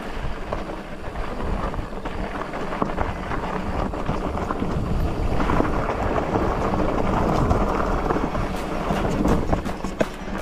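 Mountain bike being ridden over a rough dirt and rock trail: tyres grinding over the ground and the bike rattling, with wind rumbling on the microphone. It gets louder about halfway through, and a quick run of sharp clicks and knocks comes near the end.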